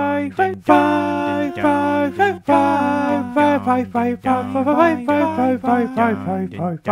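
Theme music: a sung vocal melody in short phrases over a steady low bass drone.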